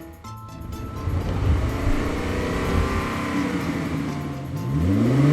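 A vehicle engine rumbling low, then revving up with a rising pitch near the end, over background music.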